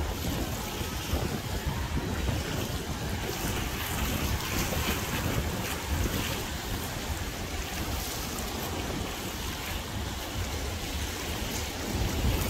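Gusty wind rumbling on the microphone over a steady rush of choppy water.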